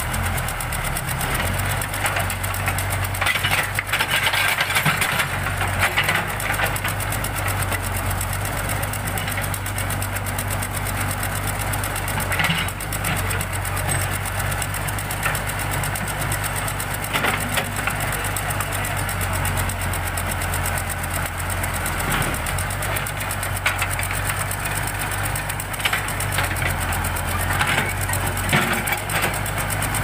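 Backhoe loader's diesel engine running steadily under hydraulic load while the backhoe arm digs, with scattered clanks and knocks from the bucket and arm.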